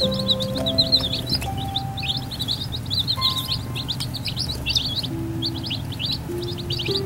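A brood of baby chicks peeping without pause: many short, high, downward-sliding peeps overlapping one another. Soft background music with held notes runs underneath.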